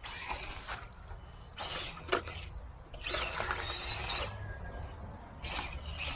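Small 1:24-scale RC rock crawler's electric motor and gears whirring in about four short bursts of throttle, the longest a second or so with a thin high whine.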